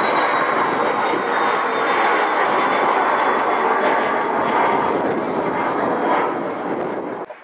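Jet airliner's engines running at high power: a loud, steady roar with a faint high whine that slowly falls in pitch. It cuts off abruptly near the end.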